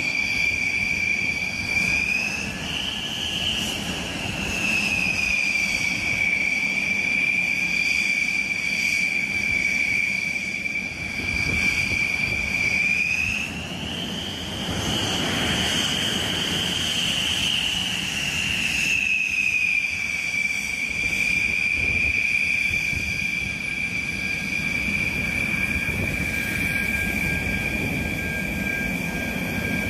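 Dassault Rafale fighter's twin M88 turbofan engines running on the ground with a loud high-pitched whine over a rushing noise. The whine rises in pitch briefly about two seconds in, rises again for several seconds near the middle, and settles back each time.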